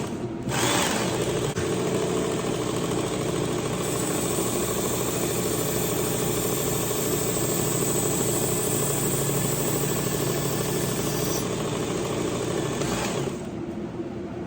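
Work Sharp Ken Onion Edition belt sharpener with its blade grinding attachment running, a kitchen knife edge ground on the 1000-grit belt: a steady motor hum under a grinding hiss. It starts about half a second in and stops about a second before the end.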